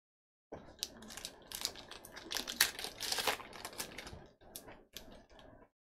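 Foil wrapper of a 2019 Topps Allen & Ginter baseball card pack being torn open and crinkled by hand: a dense run of crackles starting about half a second in, thinning to a few separate crinkles near the end.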